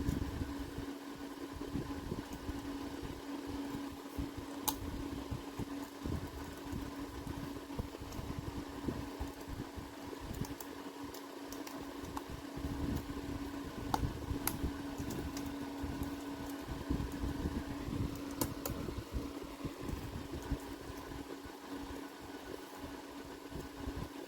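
Steady fan-like hum with a low rumble, and scattered small sharp clicks of plastic keycaps and their clips being worked off and on a low-profile laptop-style keyboard.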